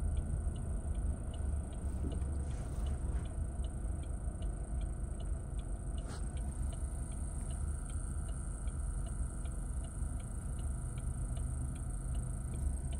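Car turn-signal indicator clicking steadily, a little over two clicks a second, over the low hum of the engine and road inside the cabin: the turn signal is on, set early for the coming right turn.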